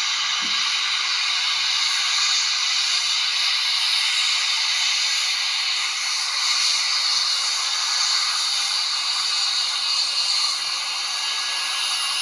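Twin Pratt & Whitney Canada PW306C turbofans of a Cessna 680 Citation Sovereign running as the jet taxis: a steady loud hiss with a faint high whine held at one pitch.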